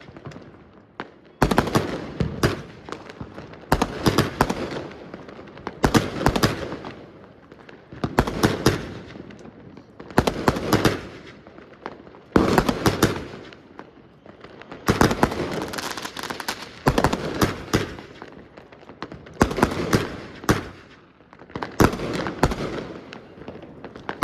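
Fireworks going off in a regular series of loud crackling bursts, one about every two seconds, each a quick cluster of sharp bangs that fades away.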